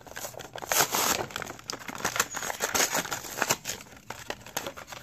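Plastic blister pack and cardboard backing card of a diecast toy car being torn apart and crinkled by hand: a continuous run of irregular crackles and tearing, loudest about a second in.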